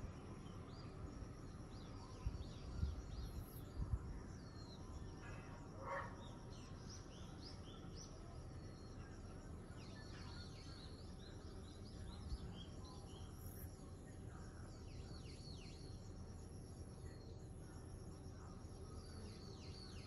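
Small birds chirping outdoors: many short, quick, high chirps scattered throughout and busier in the second half, over a faint steady background. A few low bumps about two to four seconds in are the loudest sounds.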